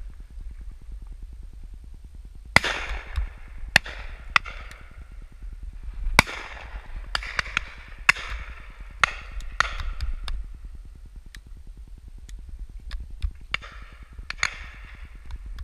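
Shotguns firing at driven birds: about a dozen reports spread irregularly, a few loud and close, the rest fainter and further off, each trailing away in an echo. A steady low rumble runs underneath.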